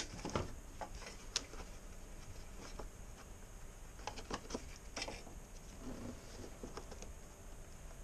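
Faint, scattered plastic clicks and rustles from handling a car headlamp assembly, as the electrical connectors on its back are unclipped.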